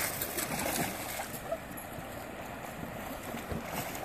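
Steady rush of river water running over shallow rapids, with a few light splashes from a German shepherd wading through the shallows.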